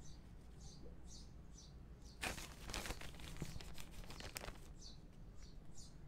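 Plastic bag of potting soil crinkling and rustling for about two seconds as a hand digs into the soil, starting about two seconds in. Under it, a steady series of high chirps repeats about twice a second.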